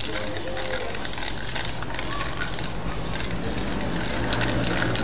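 Aerosol spray-paint can hissing as letters are sprayed onto a wall, in spurts broken by several short pauses between strokes.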